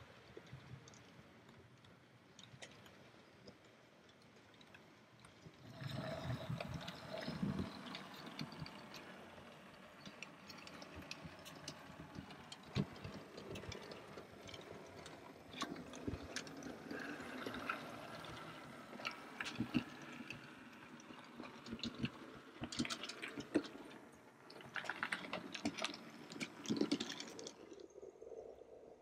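Model railway trains running on the layout: a light rattle of wheels on track with many small clicks, louder from about six seconds in.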